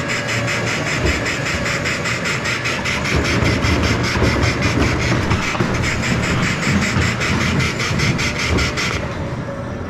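Coin-operated children's ride train running along its track: a fast, even rattle of about four or five clicks a second over a low rumble. The rattle cuts off about nine seconds in as the ride comes to a stop.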